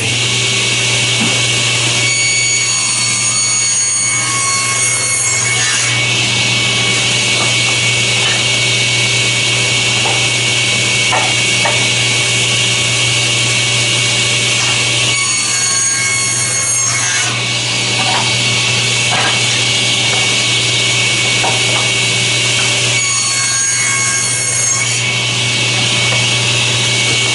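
Table saw running steadily while ripping strips off a sheet of Baltic birch plywood; three times, for two to four seconds each, the sound changes as the blade goes through a cut.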